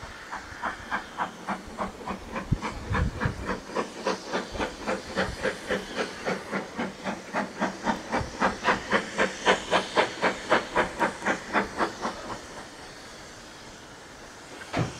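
Steam locomotive working, its exhaust beating at about three chuffs a second over a steady hiss of steam. The beats grow louder and slightly quicker, then stop about twelve seconds in, leaving only the hiss.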